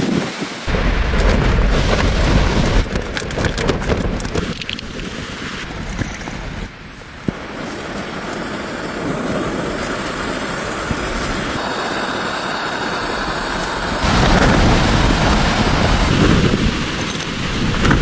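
Strong wind gusting and buffeting the microphone in a heavy rumble, with a few sharp knocks or rattles a few seconds in.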